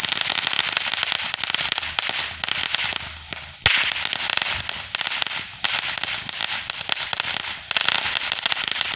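Fireworks crackling in a dense, rapid stream of small pops that comes in surges, with one louder sharp bang about three and a half seconds in.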